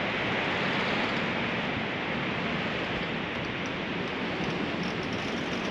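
Steady rushing noise of wind and sea, even and unbroken, with no distinct sounds standing out.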